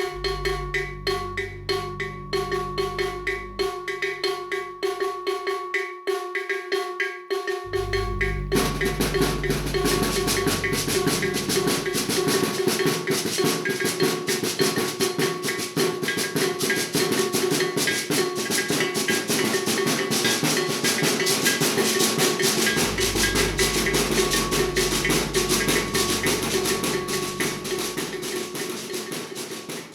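Maracatu de baque virado percussion playing a steady rhythm. The first eight seconds or so are sparser strokes over ringing tones, then the full drum section comes in densely and keeps going.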